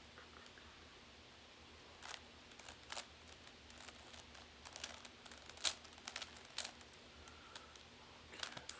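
Rubik's cube being turned by hand: quiet, irregular plastic clicks and clacks of the layers rotating, starting about two seconds in, over a faint low hum.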